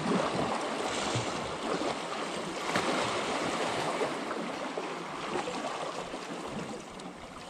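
Small waves washing and splashing against the boulders of a rock breakwall, a steady rushing wash.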